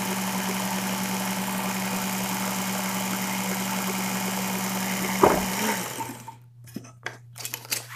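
Work Sharp belt sharpener with Blade Grinding Attachment running steadily with its belt free, a constant motor hum with belt hiss. About five and a half seconds in the sound drops sharply to a much quieter, lower hum, with a few light clicks after.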